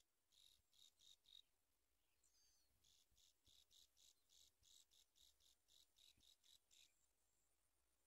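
Faint, rapid high-pitched chirps at about three or four a second: a short run, a pause of about a second, then a longer run that stops near the end.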